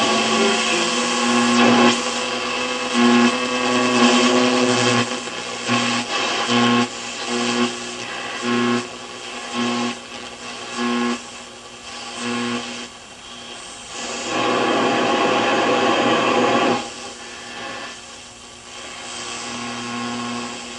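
A 1946 Firestone Air Chief tube radio's loudspeaker giving static and hiss while its tuning knob is turned across the shortwave band. For the first half a low tone pulses on and off about once a second, and past the middle the hiss surges loud for a few seconds.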